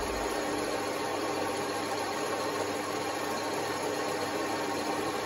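Small variable-speed benchtop metal lathe (LM-250-IM) running steadily: an even motor and gear hum with a faint steady whine.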